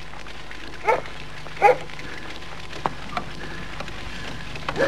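A dog barking: two short barks about a second in, and another near the end, over a steady background hiss.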